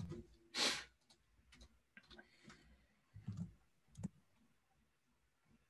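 Faint, scattered clicks from someone working at a computer, several single clicks spread over a few seconds, with a short rush of noise about half a second in.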